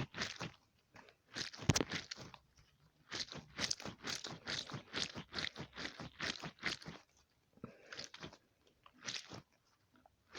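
DNA squishy stress ball being squeezed over and over, giving crunchy, squishy crackles in quick irregular runs with short pauses between.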